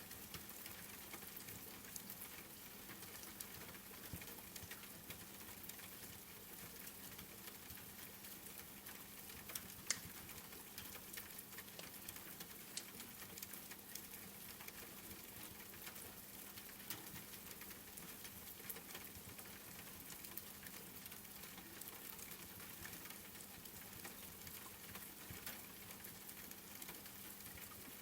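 Soft, steady rain hiss with scattered crackles and pops from a wood fire, one sharper pop about ten seconds in, over a faint steady low hum.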